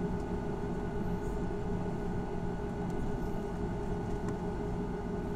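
Steady cabin noise inside a Boeing 737-800 taxiing after landing: a low roar from its CFM56-7B engines at idle, with a few steady tones over it and a couple of faint clicks.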